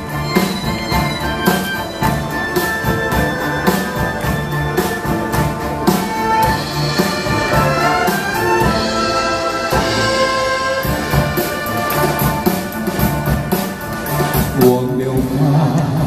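Live orchestra playing the instrumental break of a Mandarin ballad between sung verses, over a steady low bass beat.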